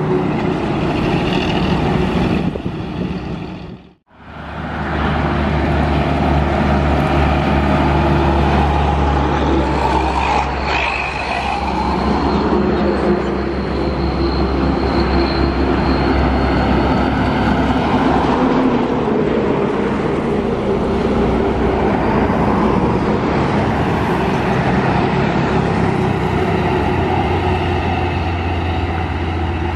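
Highway traffic: heavy trucks, buses and motorcycles passing close by with their engines running. The sound drops out briefly about four seconds in.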